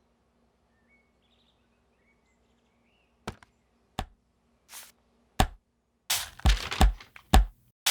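Paper handled for its sound: after about three seconds of near silence, a few sharp single snaps and a short swish, then from about six seconds a quick run of loud crackling and crumpling strokes.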